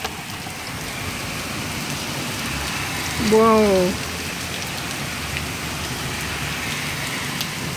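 Heavy downpour: a steady, dense hiss of pouring rain that builds slightly over the first second.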